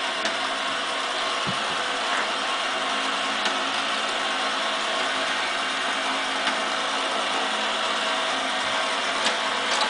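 Motorized "Splashers!" toy fishing game running: its small motor and plastic gears turning the pond with a steady mechanical whir, and a few small clicks.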